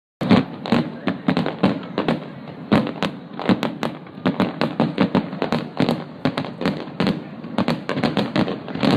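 Fireworks display going off in a dense barrage: sharp bangs and crackles several times a second, irregular, over a continuous rumble of bursts.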